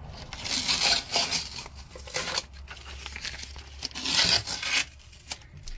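Green masking tape being peeled off an engine block's deck and cylinder bores, ripping off in about three pulls.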